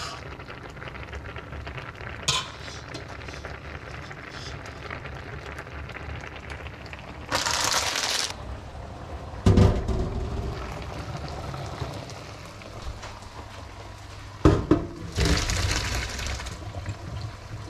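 Metal cookware knocking twice, once a little past halfway and again near the end, followed by pasta water pouring from a steel pot into a stainless steel sink for about a second and a half. A brief rush of noise comes shortly before the first knock.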